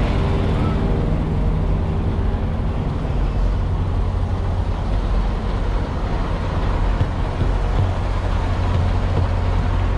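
Semi truck's diesel engine idling with a steady, low drone.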